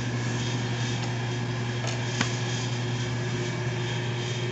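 Steady low mechanical hum with no change in level, and one light click about two seconds in.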